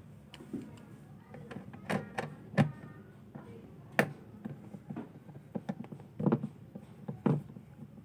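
T-handle socket wrench clicking and knocking against the bolts and plastic cabinet of a washing machine as its body bolts are unscrewed: a handful of sharp, irregular knocks, some with a brief ring.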